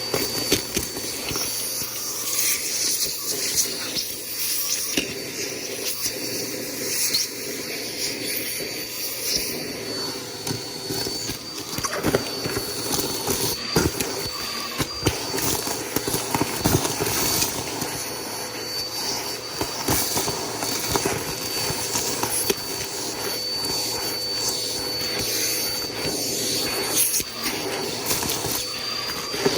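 Bissell PowerForce Helix upright vacuum cleaner running, a steady high whine over the rush of its motor, with scattered clicks and rattles.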